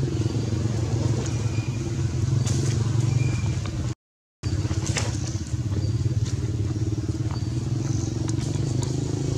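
A motor engine running steadily, a low even hum, which cuts out for about half a second around four seconds in. A few faint short high chirps and ticks sound over it.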